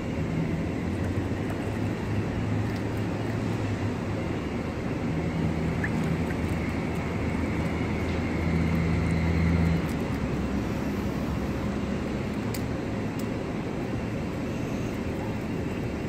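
Road traffic on the street: a steady rush of passing cars with a low engine hum that eases off about ten seconds in.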